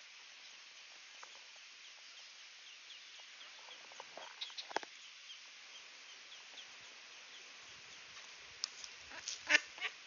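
Ducklings peeping softly and repeatedly while the hen duck gives short quacks, a few about halfway through and a louder run near the end.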